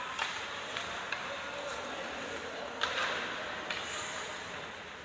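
Steady background noise with a handful of short sharp knocks or impacts, the loudest about three seconds in.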